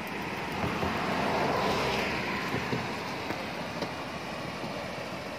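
Rushing stream water pouring over a low weir and through rapids, a steady hiss that swells for a second or so near the start.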